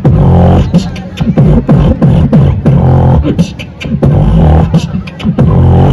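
Loud rap music with a heavy, pulsing bass beat and rap vocals.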